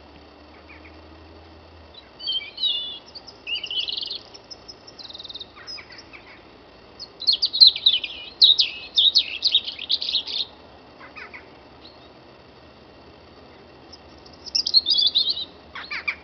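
Birdsong at dawn: a songbird sings several high, quick warbling phrases separated by pauses. The longest and loudest phrase comes in the middle and lasts about three seconds. Between the phrases there is only a faint quiet background.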